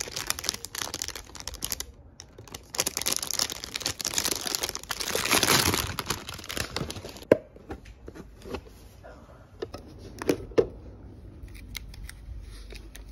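Clear plastic wrapping crinkling and tearing as a boxed gadget is unwrapped by hand, loudest between about three and six seconds in. After that, a few light clicks and taps of the plastic packaging being handled.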